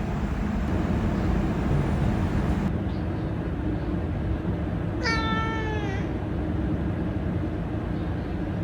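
A single cat meow about a second long, falling slightly in pitch, over a steady low background noise.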